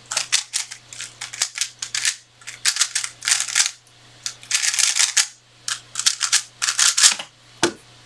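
A 3x3 speedcube being turned very fast during a timed solve: rapid runs of plastic clicking and clacking in quick bursts with brief pauses between them. A single dull thump comes near the end, after the turning stops.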